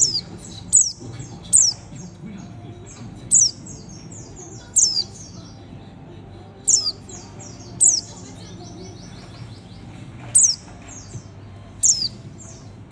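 Caged white-eye (mata puteh) singing: about nine high, sharp notes sweeping downward, each followed by a quick chattering run of short notes, repeated every second or two.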